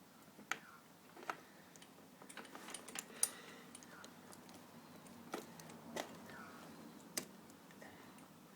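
Light, irregular metallic clicks and clinks, about six in all, of BMX crank parts being handled as the sprocket is fitted back onto the crank spindle.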